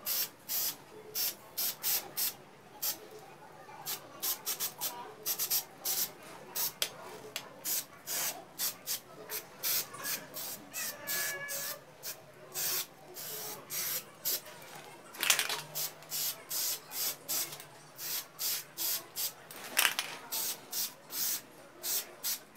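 Aerosol spray-paint can hissing out short repeated bursts, roughly two a second, with a few brief pauses, as matte black paint is sprayed onto a bicycle frame.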